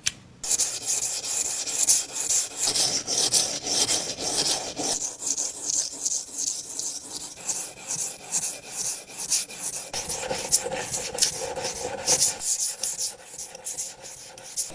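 Steel carpentry scraper blade being sharpened with quick, repeated rasping back-and-forth strokes.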